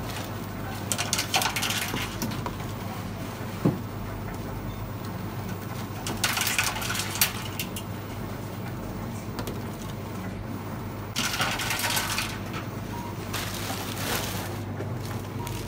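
Reverse vending machine taking in empty plastic PET drink bottles one at a time, each bottle rattling and clattering through for about a second, four times, over a steady low hum. A single sharp knock a few seconds in.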